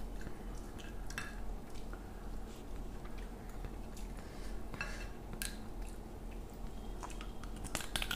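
Fingers mixing rice on a glass plate: scattered soft clicks and squishes, with a few sharper clicks close together in the last second as a mouthful is taken, over a faint steady hum.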